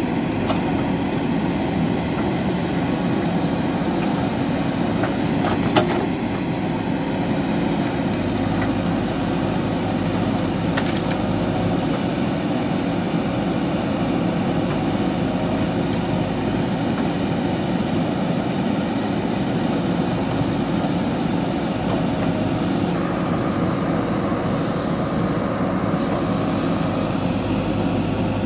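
JCB 3DX backhoe loader's diesel engine running steadily, with one sharp knock about six seconds in.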